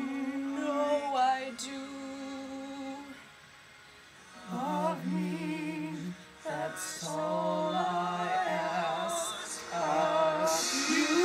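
A girl and a boy singing together, holding long notes with vibrato, with a brief pause about three and a half seconds in.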